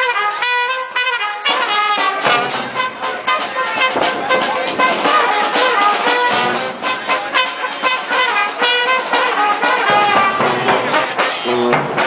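Street brass band playing, with trumpets and trombones carrying the tune.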